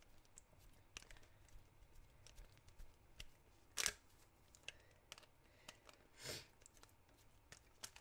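Mostly near silence, with faint scattered clicks and scrapes of a screwdriver turning the centre screw of a plastic Rubik's cube and the cube being handled. Two brief louder scrapes come about four and six seconds in.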